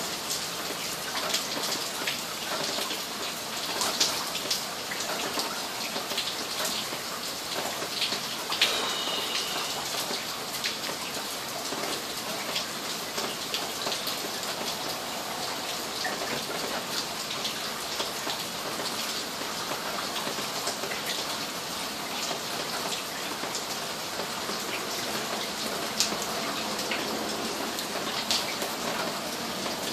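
Steady rain of a storm falling, a continuous hiss with many small drop splashes and taps.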